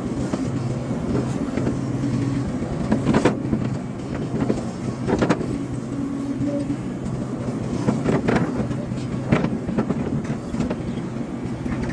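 Hydraulic excavator's diesel engine running steadily, with several sharp clanks and knocks from the machine's work at irregular moments.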